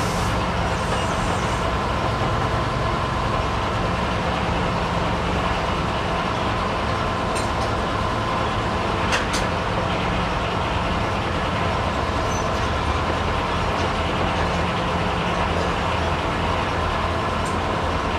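1924 Frick circular sawmill running steadily: its power unit drives the big saw blade, giving a constant low machinery drone with a steady whine over it. A few sharp clicks or knocks stand out, the loudest about halfway through.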